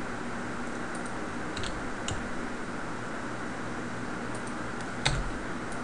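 A few scattered clicks of a computer keyboard and mouse, the clearest about five seconds in, over a steady hiss.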